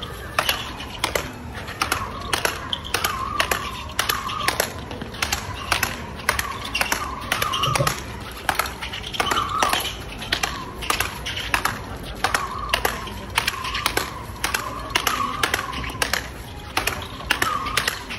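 Speedball rackets striking the ball tethered to the pole in a fast, continuous rally: sharp, regular hits about three a second.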